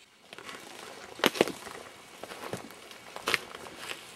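Footsteps crunching through dry brush and deadfall, with irregular twig snaps; the loudest are two sharp cracks about a second and a half in.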